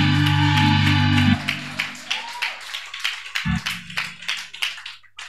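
A short burst of church band music: a loud, low sustained chord held for about a second and a half, struck again about three and a half seconds in, over quick, steady congregational hand clapping that fades out near the end.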